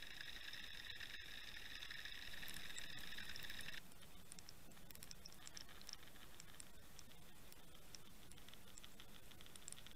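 Faint underwater sound from a camera being towed on a trolling line: a steady high whine until an abrupt cut about four seconds in, then a faint hiss with scattered tiny ticks and crackles.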